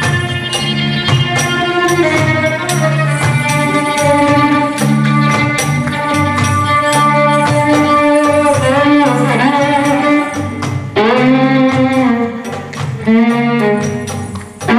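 Live belly-dance band music: a violin carries the melody with sliding, wavering notes, over percussion keeping a steady beat.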